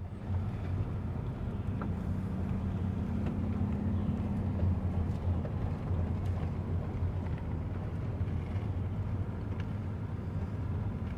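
A steady low mechanical hum, like a running engine, over a noisy background.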